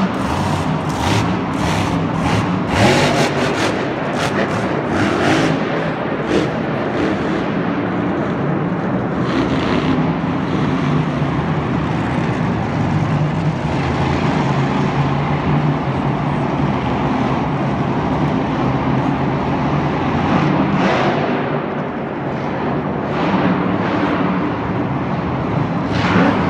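Monster truck engine running loudly, its pitch rising and falling as the truck drives around the dirt track. A few sharp cracks stand out in the first several seconds.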